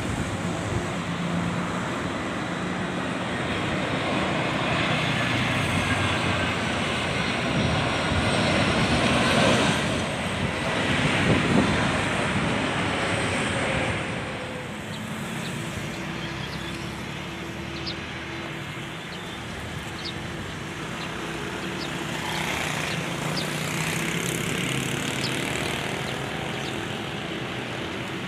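Airplane passing by, its engine noise building to its loudest about ten seconds in with a falling whine, then dropping away after about fourteen seconds to a lower steady rumble.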